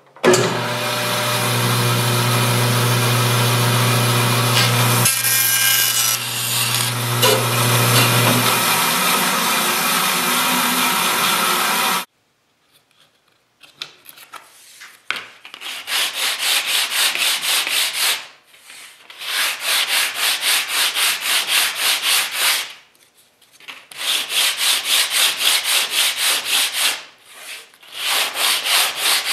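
An electric power tool runs steadily for about twelve seconds and stops abruptly. Then wood is sanded by hand in quick back-and-forth strokes, in bursts of about three seconds with short pauses between them.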